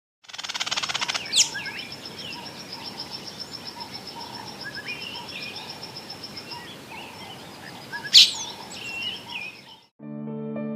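Wild birds calling: two sharp whistles that sweep steeply down in pitch, about a second and a half in and again near 8 seconds, with short chirps scattered between them. Under them runs a steady, high, pulsing trill, opened by a quick burst of rapid pulses in the first second. Soft music starts near the end.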